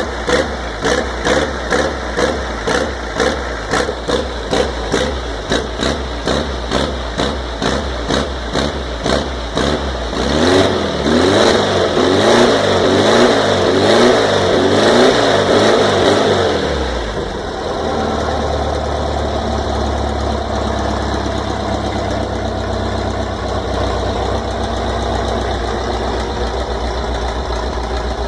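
Vehicle engine cranked over in even pulses, a little over two a second, until it catches about ten seconds in. It is then revved up and down several times and settles into a steady idle: a first start after the engine was out for two days.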